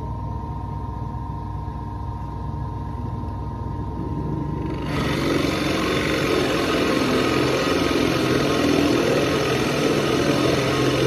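Electric drill running with a 30 mm Forstner bit boring holes in pallet wood. A steady motor hum for the first few seconds, then a louder, rougher cutting noise from about five seconds in.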